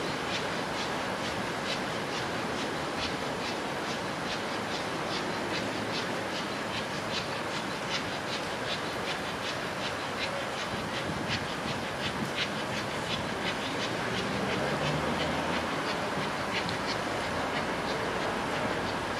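LMS Royal Scot class steam locomotive 46100 and its coaches moving slowly through the station. There is a steady run of short sharp wheel clicks over the rail joints and points. From about two-thirds of the way in, a low rumble grows louder as the engine draws nearer, steam escaping from its cylinder drain cocks.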